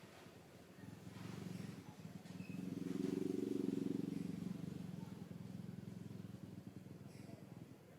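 A low, rapidly pulsing engine rumble that swells to its loudest a few seconds in and then slowly fades, like a motor vehicle passing by.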